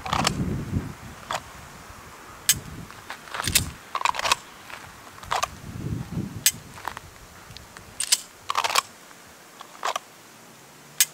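Scattered sharp clicks and light rattles, about a dozen at uneven intervals, from a pistol being drawn from and returned to a belt holster during dry-fire practice. Among them is the click of the trigger breaking on the unloaded gun. A few duller thumps come from the shooter's handling and movement.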